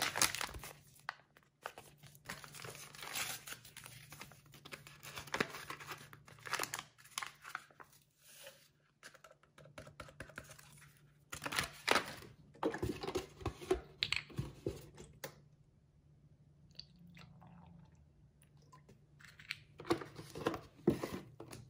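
A meal-replacement packet being handled, rustling and crinkling, with tearing and scattered small clicks and knocks. The sounds go quiet for a few seconds about two-thirds of the way through, then pick up again.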